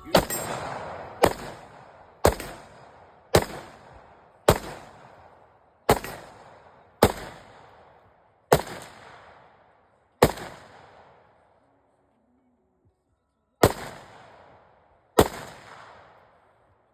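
Eleven single gunshots fired one at a time, about a second apart, with a pause of roughly three seconds before the last two. Each shot is followed by a long echoing tail.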